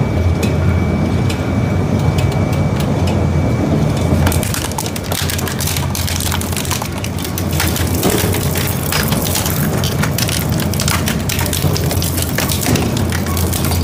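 Twin-shaft shredder chewing up children's strollers of metal tubing, wicker and plastic: a steady low drone from the drive, with dense cracking and snapping that sets in about four seconds in as the frames and seats break apart.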